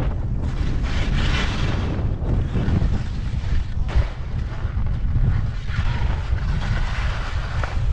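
Wind buffeting the action camera's microphone in a steady, churning rumble, with two longer hissing swells, the first near the start and the second near the end.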